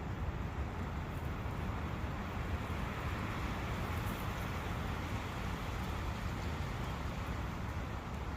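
Forest ambience of wind and a running brook: a steady, even rush of noise with a deep low rumble underneath.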